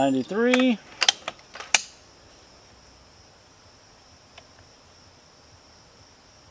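A brief voice at the start, then four sharp metallic clicks within about a second as the Benjamin Bulldog M257 air rifle is cocked and the next slug chambered. After that, several seconds of quiet with a faint steady insect drone.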